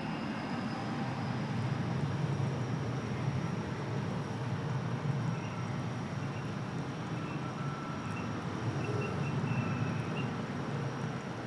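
Steady low rumble and hiss of airport background noise, with faint thin tones drifting in and out; no single event stands out.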